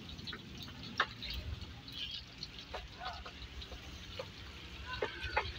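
Street ambience on a wet road: a steady low rumble of passing traffic with scattered short clicks and chirps.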